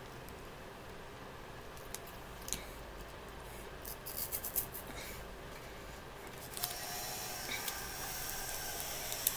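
Foil sweet wrapper crinkling in the hand in scattered crackles, with a busier run about four to five seconds in. About two-thirds of the way through a steady hiss starts and holds.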